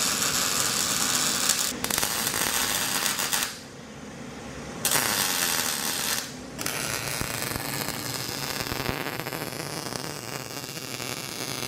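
Electric arc welding: a steady crackling hiss as plates are welded in. The arc stops twice, about three and a half seconds in for a second or so and again about six seconds in, then runs on a little softer.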